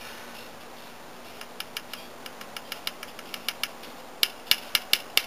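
A run of short, sharp light clicks or taps, sparse and faint at first, then louder and quicker about four seconds in.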